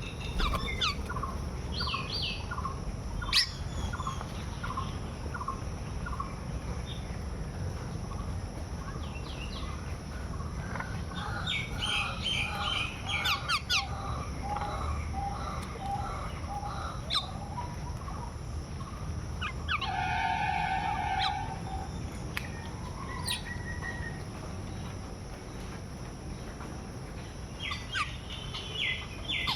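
Birds calling and chirping outdoors: runs of short repeated notes and quick high chirps, with one longer held call about twenty seconds in.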